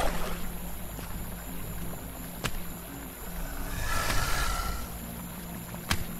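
Sound design for a tense night scene: a low, steady ambient drone with a short swell about four seconds in and two sharp clicks, one a little before the middle and one near the end.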